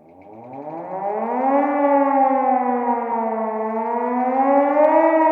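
Civil-defence air-raid siren winding up from a low pitch over about a second and a half, then wailing with a slow fall and rise in pitch. It is the warning sounded for a war-like emergency.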